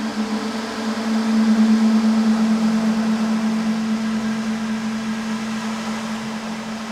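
A singing bowl sustaining a low humming tone that swells about a second in and slowly fades, with a second, lower tone joining partway through, over a steady wash of sea noise.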